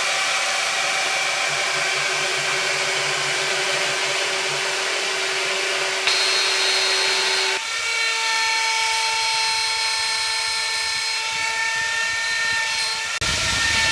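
CNC machine cutting: a steady spindle whine over cutting noise, its pitch shifting abruptly a few times.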